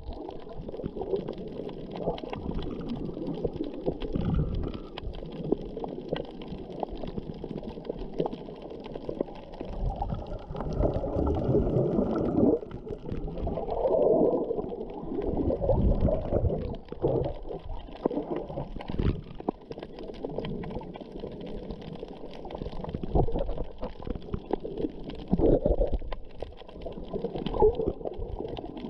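Muffled underwater sloshing and gurgling of water around a submerged camera, swelling and fading irregularly, with scattered faint clicks.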